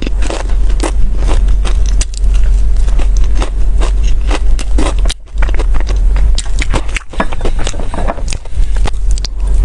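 Close-miked chewing of a purple sweet potato taiyaki: the crisp waffle crust crackles in quick irregular clicks, with a steady low rumble underneath and a brief pause about five seconds in.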